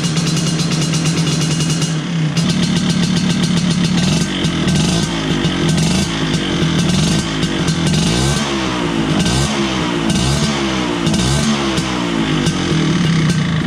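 A 1983 Vespa PX125E's freshly rebuilt two-stroke single-cylinder engine, fitted with a 177cc cylinder kit, runs at a steady idle. From about five seconds in it is blipped again and again, the pitch rising and falling with each blip, before it settles back to idle near the end.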